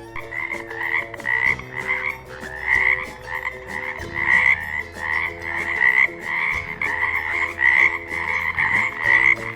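Frog croaking over and over, a rapid run of croaks at about two a second.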